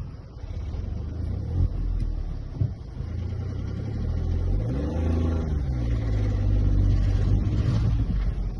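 Mahindra XUV 3XO driving on a hill road: the engine runs steadily, its pitch rising and then falling about five seconds in, with a few sharp knocks early on, the kind of rattle the owner is recording.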